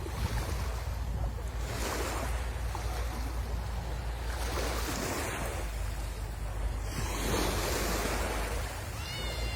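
Sea waves breaking and washing up the shore, swelling about every two to three seconds, over a low rumble of wind on the microphone.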